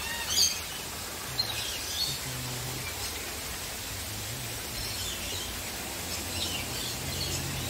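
Birds calling in short, scattered chirps over a steady background hiss, the loudest call about half a second in.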